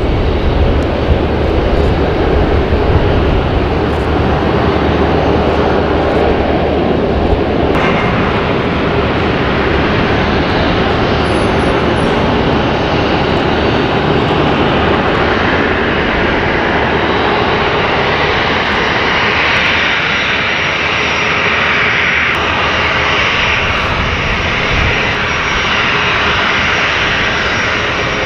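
Boeing 737 Classic's CFM56-3 turbofan jet engines running loud and steady close by. The sound turns suddenly brighter and hissier about eight seconds in, and the hiss grows again in the second half.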